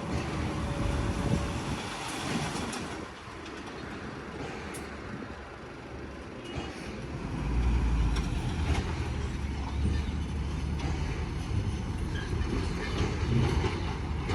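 Heavy construction machinery working: diesel engine running with scattered knocks, getting louder about seven and a half seconds in.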